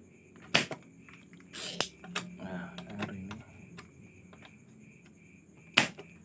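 Spring-loaded desoldering pump (solder sucker) snapping as it fires and is re-cocked while a soldering iron melts the joint, desoldering a safety resistor from a TV circuit board. There are sharp clicks about half a second in and near two seconds in, and a loud one near the end.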